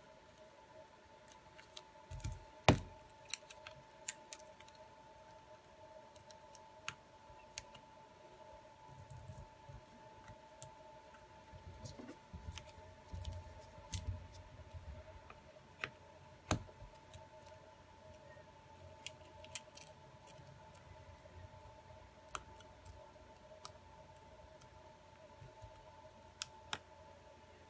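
Scattered small clicks and taps of a smartphone's plastic and metal parts being handled and worked apart by hand, the sharpest click about three seconds in and another past the middle, over a faint steady hum.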